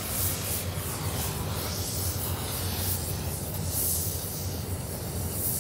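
Welding torch hissing steadily as it welds the joint of a steel superheater-element tube, over a constant low hum.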